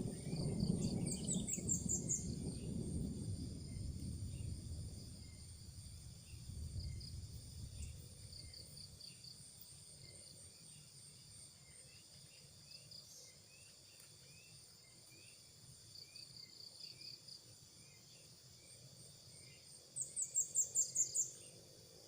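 Insects trilling steadily at a high pitch, with a low rumble that fades away over the first several seconds. Near the end a bird gives a rapid series of about eight sharp high notes, the loudest sound, with a shorter, fainter series about a second in.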